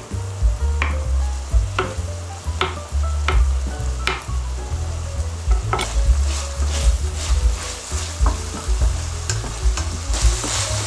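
Food frying in a pan while being stirred: a spatula scrapes and knocks at irregular intervals over a sizzle that grows louder near the end.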